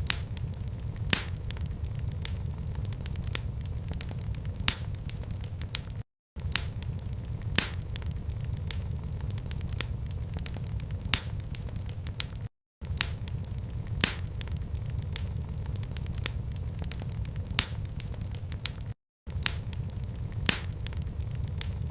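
Wood fire crackling: scattered sharp pops over a steady low rumble. The sound drops out for a split second about every six and a half seconds, where the recording loops.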